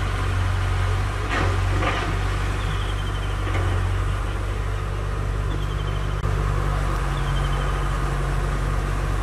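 A steady low mechanical hum of a running engine, with two short bursts of noise about a second and a half in.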